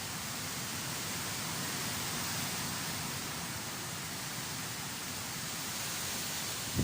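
Typhoon wind and rain: a steady rushing noise that swells slightly and then eases a little.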